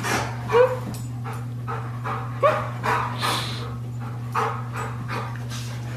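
Dog panting hard in quick breaths, with a couple of short pitched whines, over a steady low electrical hum.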